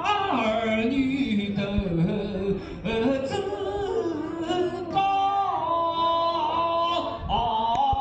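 A voice singing, the pitch sliding up and down between notes, with long held notes in the second half.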